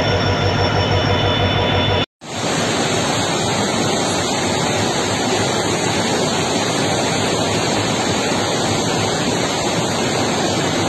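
A diesel locomotive's engine running with a steady hum for about two seconds. It then cuts out abruptly, and heavy rain is heard pouring steadily onto a flooded station platform.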